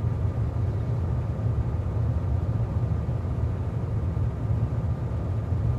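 A steady low rumble with no distinct events, even throughout.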